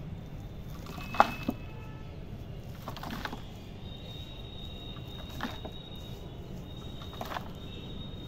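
Bare hands scooping gritty homemade potting soil off a concrete floor into a plastic pot: short scraping rustles every couple of seconds, with a sharp click about a second in.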